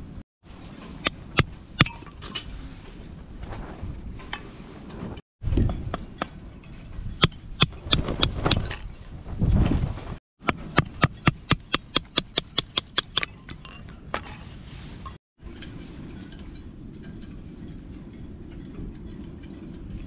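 Batoning with a Mora bushcraft knife: a wooden branch knocking on the knife's metal spine to drive it through a small stick of firewood, sharp knocks and clinks. Midway comes a quick run of light strikes about four a second, and the wood splits easily.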